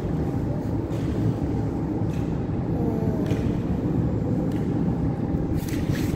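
Steady low rumble of a metro station platform, with a faint whine that bends in pitch about three seconds in.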